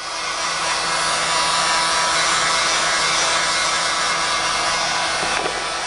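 Industrial hot air gun blowing steadily on its low-speed setting: a rush of air with a faint fan hum, heating shrink-wrap film onto a box. The sound swells over the first second, then holds steady.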